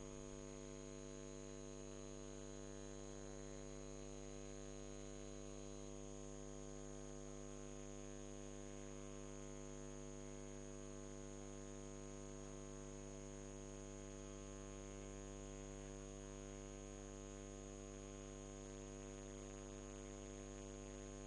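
Faint steady electrical hum with a thin high whine over soft hiss, unchanging throughout.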